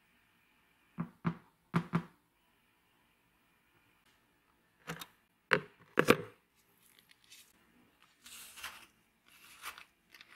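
A few light clicks, then sharp knocks as a rusty straight razor blade is set down against a plastic tub, followed by two short spells of soft rasping near the end.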